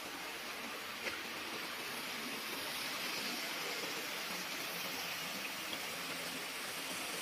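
Steady rush of water pouring from an inlet pipe and splashing into a pond, growing a little louder a couple of seconds in, with a single small click about a second in.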